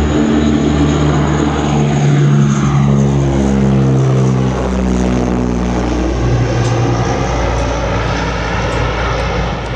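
Transall C-160's two Rolls-Royce Tyne turboprop engines and propellers droning loudly as the aircraft climbs out just after lift-off; the drone drops in pitch about halfway through as it passes overhead and moves away.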